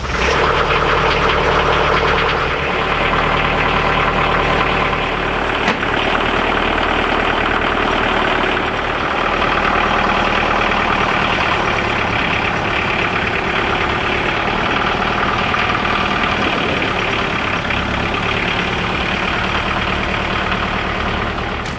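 Mahindra tractor's diesel engine running steadily while its front loader lifts a load, with a single knock about six seconds in.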